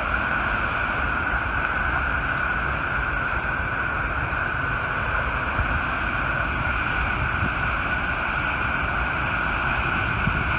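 Water jetting from the Button Rock Dam outlet and plunging into the St. Vrain River: a steady, unbroken rush of white water.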